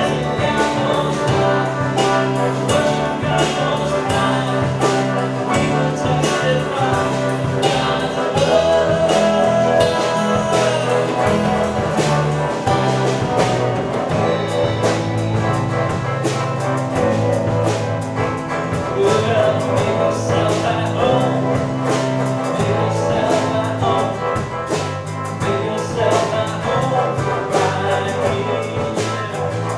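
Worship band music with drums, a bass line and a lead melody, playing steadily.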